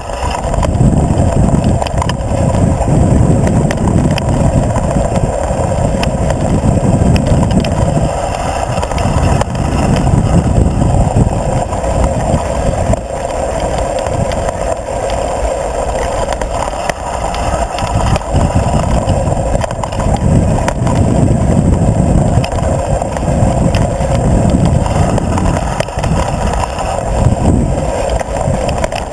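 Mountain bike riding fast down a dirt singletrack: knobby tyres rumbling over the ground with many small rattles and clicks from the bike, under heavy wind buffeting on a bike-mounted camera's microphone, which surges and eases.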